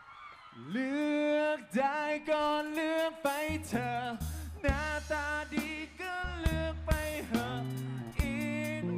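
Amplified live concert music: a man sings long, gliding melodic notes into a microphone, and bass and drums come in about three and a half seconds in with sharp drum hits.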